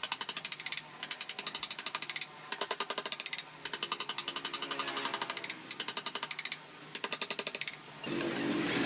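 Carving chisel cutting into wood: fast trains of sharp ticks, about ten a second, in bursts of about a second with short pauses between. Near the end the ticking stops and a steadier sound takes over.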